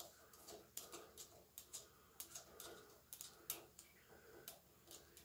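Faint, irregular metal clicks and ticks from a wrench working loose the 10 mm bolts on the planer's sprocket shafts.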